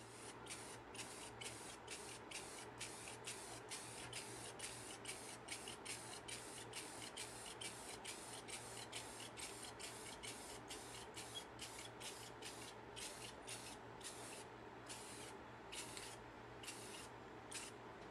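Finger-pump spray bottle misting watered-down black paint onto painted boards in quick repeated spritzes, about three a second, coming slower and with pauses near the end.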